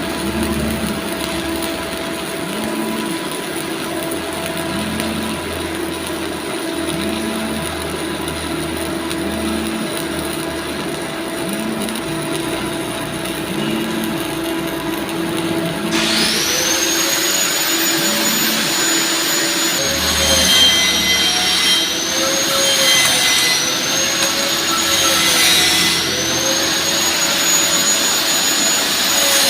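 A steady mechanical hum with a soft pulse about once a second. About halfway through, a loud high whine from a power tool starts suddenly and wavers up and down in pitch as its load changes.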